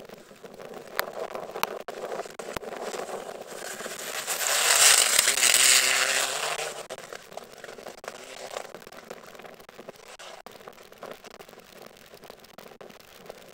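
Mitsubishi Lancer Evolution rally car driven hard on a gravel stage. Its engine builds as it approaches and is loudest as it passes close, about five seconds in, with gravel crackling and spraying under the tyres, then fades as it drives away.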